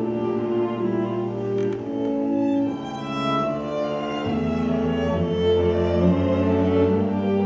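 String quartet of two violins, viola and cello playing held, bowed notes that change every second or so, with a deeper cello note entering about four seconds in.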